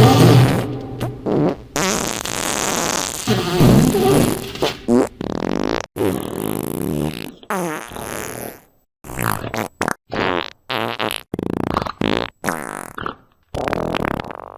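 Fart sound effects played back to back: long sputtering ones with a wobbling pitch first, then a quick string of about a dozen short farts, each separated by a brief silence.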